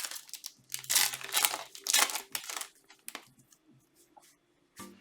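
Thin plastic card sleeves crinkling and rustling as a trading card is slid into a sleeve. The loud rustling lasts about two seconds, then fades to a few faint rustles.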